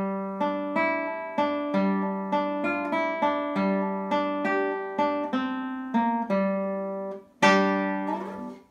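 1998 Lowden acoustic guitar played fingerstyle: a flowing line of single plucked notes, about two a second. After a brief pause a louder closing chord is struck near the end, rings for about a second and is damped abruptly.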